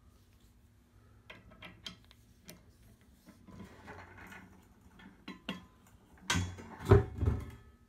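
Click-type torque wrench being handled on a dead-weight calibration fixture: a few light metallic clicks and clinks as it is fitted onto the socket, then a louder cluster of clunks and rattles near the end as it is pulled under load, with a sharp click as the wrench releases at its 102.5 inch-pound setting.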